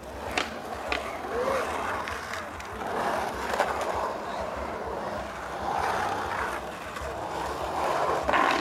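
Skateboard urethane wheels rolling and carving across a concrete bowl. The rolling noise swells and fades with each pass across the bowl, broken by a few sharp clacks of the board on the concrete, the loudest near the end.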